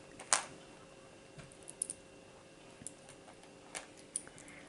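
Fingers prying and twisting at a small plastic Mighty Beanz capsule that is hard to open, giving scattered soft clicks and plastic taps, the sharpest about a third of a second in.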